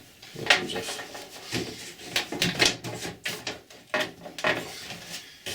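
Irregular clicks, knocks and scrapes of hands and a screwdriver working the front panel off an old dehumidifier's casing.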